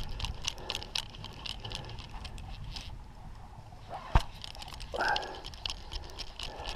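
Fly reel and line handling while a hooked striped bass is played on a bent fly rod: scattered light clicks, with one sharp knock about four seconds in.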